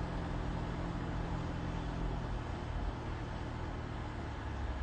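Mercedes-AMG CLA 45 Shooting Brake's turbocharged four-cylinder engine running at steady revs while driving, its even drone mixed with road and wind noise.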